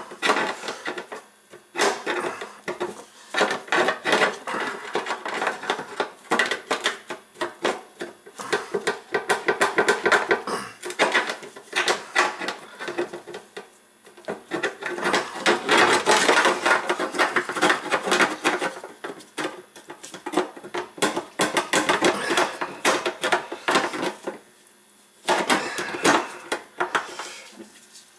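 Rapid metallic scraping and clicking of hand tools working on a stainless steel sink deck at the faucet holes, in long runs with short breaks.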